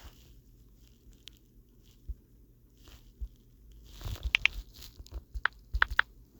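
Soft clicks and crackly ticks close to the microphone, scattered at first, then a quick run of them from about four seconds in.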